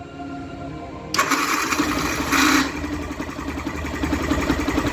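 Yamaha Fazer 150 electric starter cranking with a harsh, rough noise about a second in. The single-cylinder engine catches and settles into a steady, pulsing idle. The starter's noise is the fault being shown, which the mechanic puts down to a dirty, ungreased starter motor.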